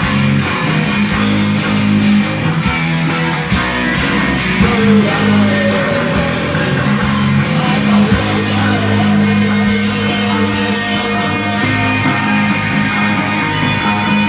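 Live psychedelic rock band playing: electric guitar, bass and drums, with sustained low notes underneath.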